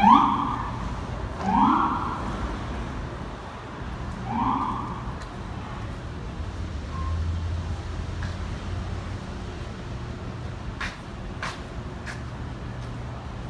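Three short rising whoops, like an emergency vehicle's siren, in the first five seconds, over a steady low rumble of traffic; a few faint clicks near the end.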